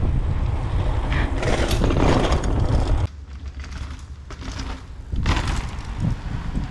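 Mountain bike riding noise with wind buffeting the handlebar-mounted microphone, loud and rumbling. It cuts off suddenly about three seconds in to much quieter outdoor sound with a couple of brief louder swells.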